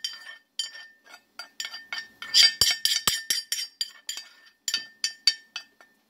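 A utensil clinking, tapping and scraping against a small cast-iron skillet and a mixing bowl while butter-sauteed seasoning is scraped out: an irregular run of sharp clinks, some with a faint ring, busiest around the middle.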